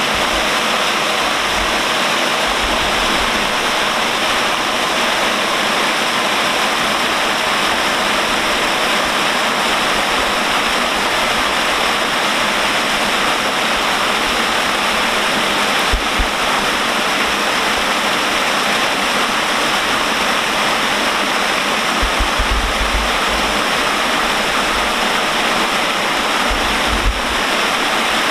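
Water pouring off the edge of a trough bridge in a curtain, falling like a waterfall onto a river's surface: a loud, steady, splashing rush.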